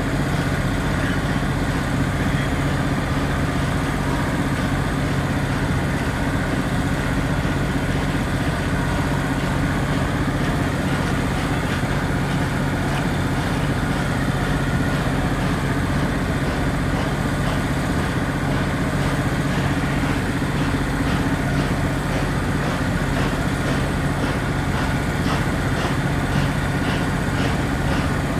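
A steady, low mechanical hum of an idling engine, holding constant throughout with no rhythm or change in pitch.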